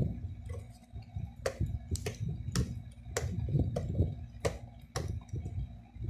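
Unboxing handling noise: packaging and parts being handled, with a run of about seven sharp clicks spread over several seconds above low, uneven bumping.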